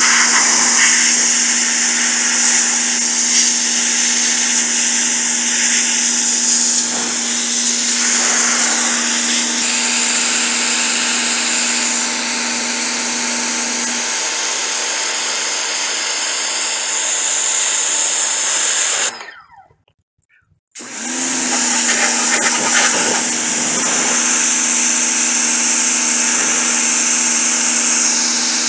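Ryobi 1600 psi electric pressure washer running, its motor humming steadily under the loud hiss of the high-pressure water jet striking a wooden tabletop. About two-thirds of the way through it stops for about a second and a half, then starts up again.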